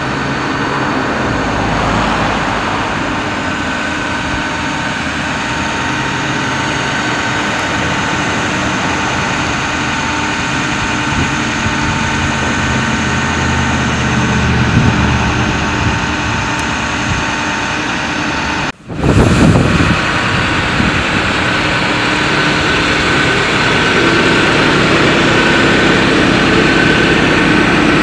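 Ford 6.4L Power Stroke diesel idling with the PTO-driven hydraulic system running while the Altec AT37-G boom is lowered and stowed, a steady high whine riding over the engine. The sound cuts out briefly about nineteen seconds in, followed by a short louder burst before the steady running resumes.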